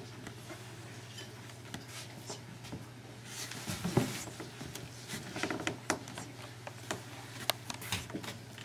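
Quiet room sound over a steady low hum, with scattered knocks and clatters from the floor and stage; the loudest knock comes about four seconds in.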